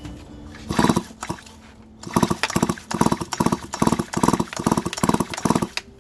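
Stihl MS 250 chainsaw's recoil starter pulled in short strokes, the engine turning over without firing, its spark plug out: one pull about a second in, then about nine quick pulls in a row, each with a brief whir.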